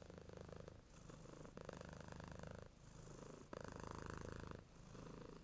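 Norwegian Forest cat purring, faint, in a steady rhythm of breaths in and out about one per second.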